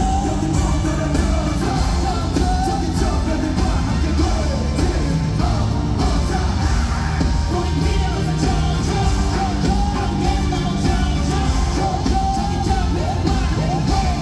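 Live K-pop concert music heard from the audience: a loud backing track with a heavy bass, and the group singing and rapping into microphones, with yelling.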